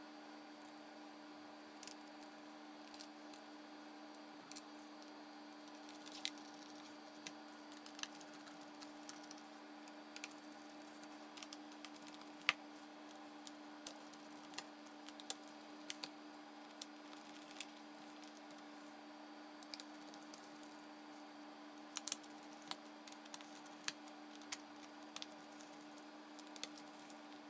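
Scattered small clicks and taps of a screwdriver and tiny screws on a laptop's metal back cover as the screws are put back in, irregular and a few seconds apart, with a few sharper clicks, over a faint steady hum.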